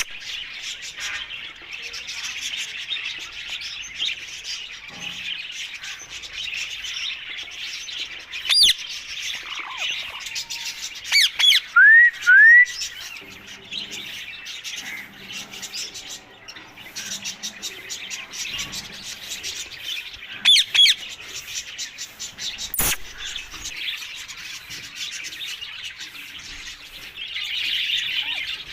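Rose-ringed (ringneck) parakeets calling: continuous high chirping chatter with a few loud, sharp screeches. The loudest is a pair of rising calls about twelve seconds in.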